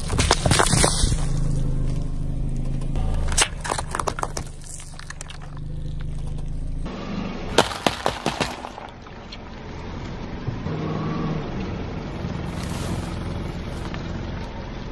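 A car tyre rolling slowly over objects on asphalt and crushing them: cardboard drink cartons bursting with loud cracks and crackling, then a tray of eggs breaking in a quick run of sharp snaps about eight seconds in. The car's engine runs with a low steady hum underneath.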